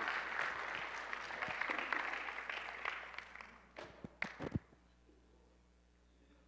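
Church congregation applauding, the clapping dying away over the first three and a half seconds, followed by a few sharp knocks a little after four seconds in.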